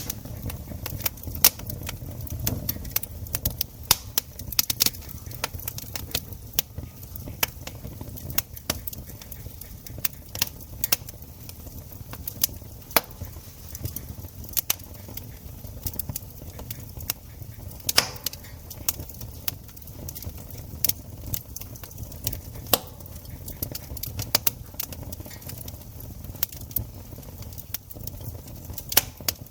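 Wood campfire crackling: a steady run of irregular sharp snaps and pops from the burning wood, over a low steady rumble.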